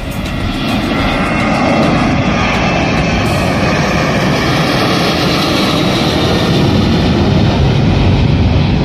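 Jet airliner's engines at close range: a loud rushing roar with a high whine through it, swelling over the first second or two and then holding steady.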